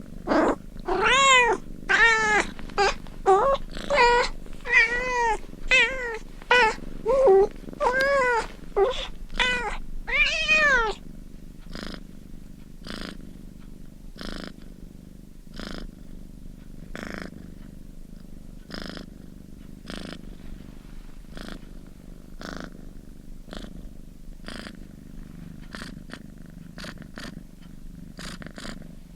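Kittens meowing again and again, short high mews that rise and fall in pitch. About eleven seconds in they stop abruptly and a cat purrs steadily, with a soft pulse about once a second.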